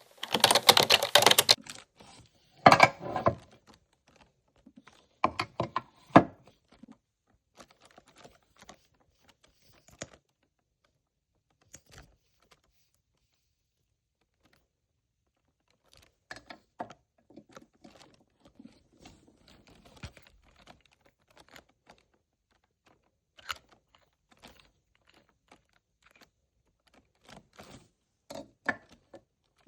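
Irregular taps, clicks and rustles, like things being handled close to a phone's microphone. The loudest rustling comes in the first second and a half and again around three seconds in, with a quiet gap around the middle.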